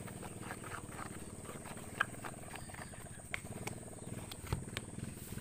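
A stirring stick scraping and knocking in a small plastic tub of thick resin-and-talc putty, giving a few sharp clicks, over a steady low rumble.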